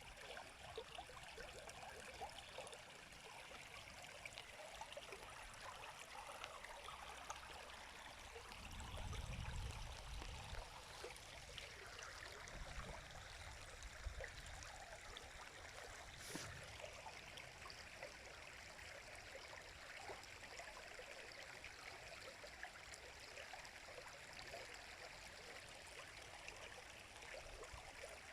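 A river flowing steadily, a faint, even rush of water. A brief low rumble comes about nine seconds in, and a single sharp click near the middle.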